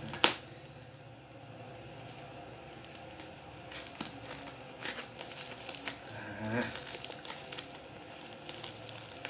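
Plastic parcel packaging being crinkled and torn open by hand: a sharp click just after the start, then scattered crackling and rustling through the second half.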